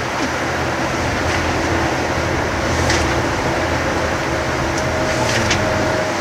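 Canal sightseeing boat under way, its motor running with a steady low hum and a faint high tone, heard from inside the cabin. A few faint clicks are scattered through it.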